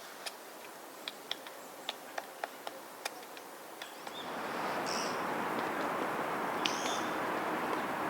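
White-backed woodpecker tapping on wood: single sharp knocks at an irregular pace, not a drumming roll. About four seconds in, a steady rushing noise comes up, with a few short high bird calls over it.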